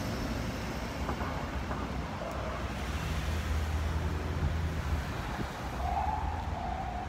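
City street traffic noise: a steady low rumble of vehicle engines with hiss of passing cars and some wind on the microphone. About six seconds in, a steady, slightly wavering high tone joins in.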